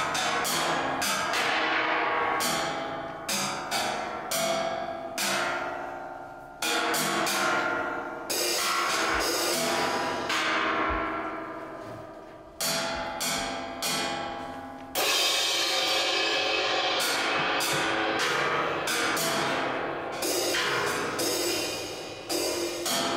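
Metal percussion, cymbals with gong- and bell-like tones, struck again and again at an uneven pace. Each stroke is left to ring and die away, some over two or three seconds.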